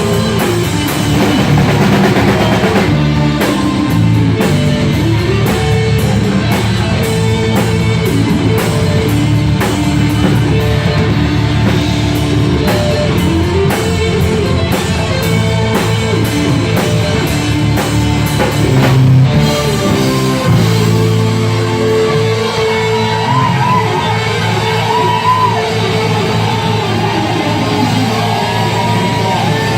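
Rock band playing live: electric guitars over a drum kit, with a lead guitar line coming in about two-thirds of the way through.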